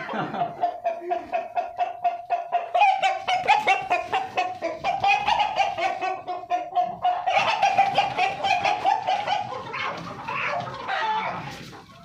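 Kuroiler chickens squawking and clucking in loud, rapid, repeated calls, the alarm of birds being chased while a rooster is caught. The calls come loudest in two long spells and die down near the end.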